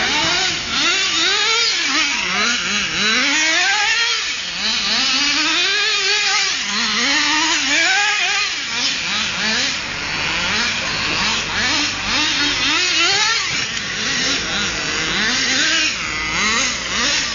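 Gas-powered HPI radio-controlled car's 26 cc two-stroke engine revving up and down again and again as the car is driven around, its pitch rising and falling about once a second.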